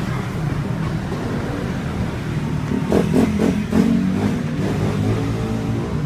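A motor vehicle engine running steadily, with a short rise and fall in pitch and loudness about three seconds in, as when it is revved.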